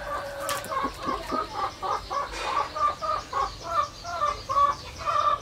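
Chickens clucking: a steady run of short repeated calls, about three a second.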